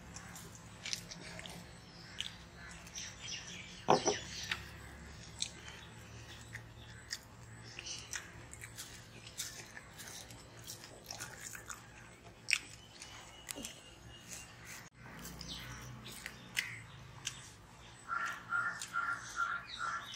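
Kids drinking chocolate milkshake from glasses: sipping, slurping and swallowing sounds with scattered small clicks and taps, and one sharper knock about four seconds in. A quick run of repeated short high notes near the end.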